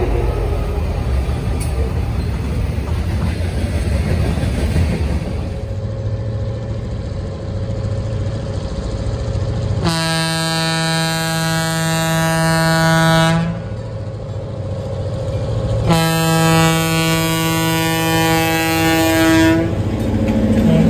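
A freight train's hopper cars roll past with a steady rumble of wheels on rail. After that, an approaching Metra commuter train's locomotive sounds two long horn blasts, each about three and a half seconds, a few seconds apart.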